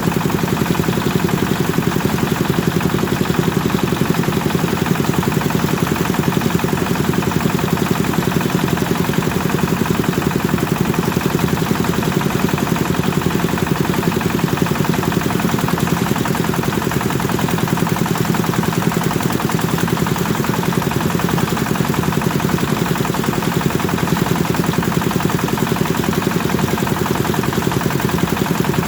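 Kubota diesel engine running steadily at a constant speed, driving a rice thresher, with a fast, even chugging beat.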